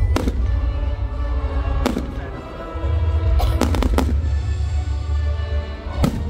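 Fireworks bursting overhead in a series of sharp bangs: one at the start, one about two seconds in, a quick cluster of three or four around four seconds, and one near the end. Loud music with a heavy bass plays throughout.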